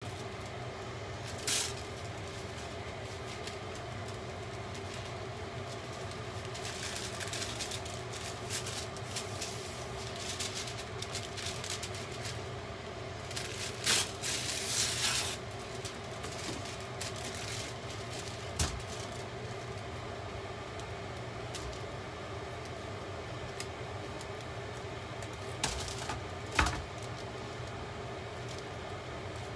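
Plastic cling wrap being handled, with a burst of crinkling about halfway through as a sheet is pulled off the roll. A few sharp clicks and knocks of handling sound over a steady low hum.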